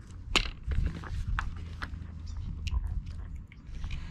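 Hard plastic water-bottle lid and bottle being handled, its flip spout opened: a string of small irregular clicks and taps, over a low steady rumble.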